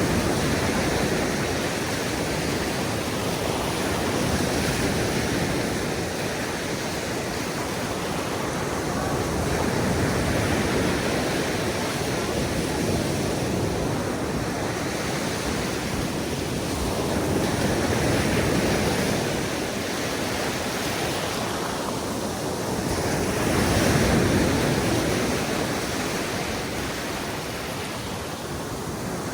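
Atlantic surf breaking and washing up a beach: a continuous rush of water that swells and eases every several seconds.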